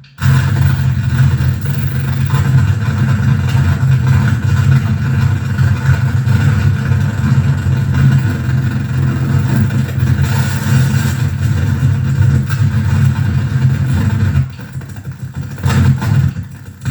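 Harsh noise music from a mixer-feedback rig with reel-to-reel tape reverb and bass: a loud, dense drone heavy in the low end with a hiss above it. It cuts out for an instant at the start, then thins out and drops in level near the end, with one short surge back.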